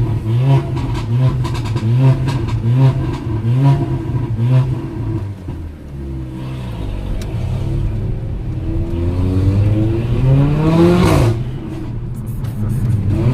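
Mercedes-AMG GLA 45's turbocharged four-cylinder engine and exhaust being blipped repeatedly, a short rev roughly every three-quarters of a second for about five seconds. The engine then revs out in one long rising pull that cuts off sharply, followed by a few sharp exhaust pops and crackles.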